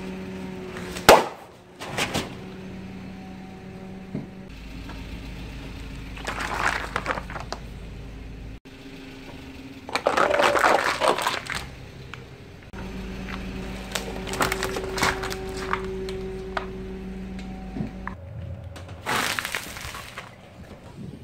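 A car tyre rolling slowly over objects on concrete: a balloon bursts with a sharp, loud pop about a second in, then clear plastic cups and a plastic lighter crackle and crunch as they are crushed in several bursts. The car's engine hums steadily underneath.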